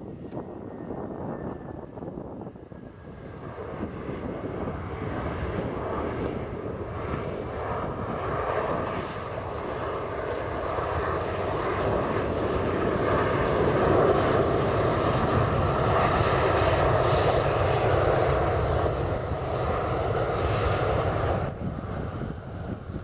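Twin rear-mounted turbofan engines of a Gulfstream business jet taxiing past, a steady jet whine and rumble that grows louder as the aircraft approaches and falls off shortly before the end.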